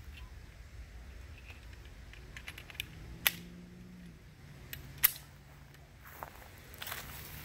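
Metallic handling clicks of a Smith & Wesson M&P Shield 9mm pistol being reloaded after running empty: two sharp clicks about three and five seconds in, with a few fainter ticks around them.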